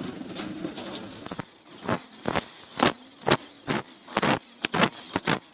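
Metal clicks and scrapes of a spanner being worked on the clutch lifter plate bolts of a motorcycle engine. Sharp clicks, about two or three a second, start about a second and a half in.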